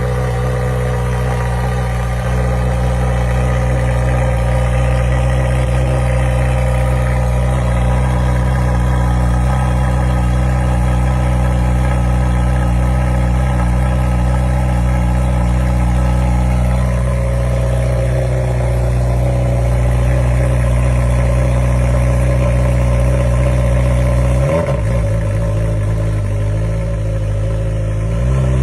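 Honda CBR1000RR inline-four motorcycle engine running at a steady idle, with a brief change in pitch near the end.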